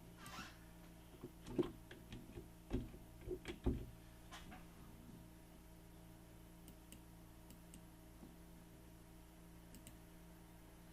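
Faint scattered clicks and taps of a computer mouse and keyboard, bunched in the first few seconds, over a steady low hum from the room or the computer.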